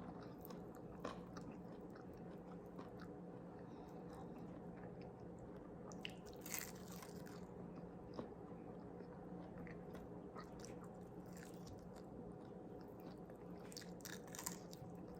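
Faint chewing and biting, with a few short crunches, over a low steady hum.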